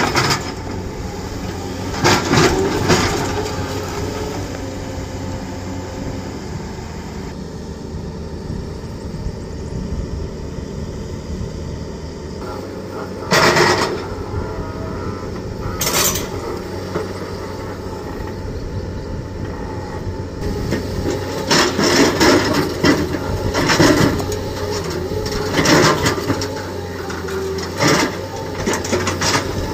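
Excavator-mounted hydraulic rock breaker hammering on rock in short bursts of rapid blows, a few early on and many close together in the last third, over the steady running of the excavators' diesel engines.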